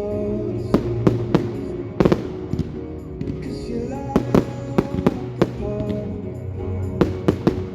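Fireworks going off in sharp, irregular bangs, about a dozen of them in quick clusters, over music with steady held notes.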